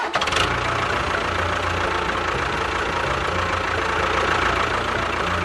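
A motor or engine running steadily, with a low rumble under an even, noisy hiss.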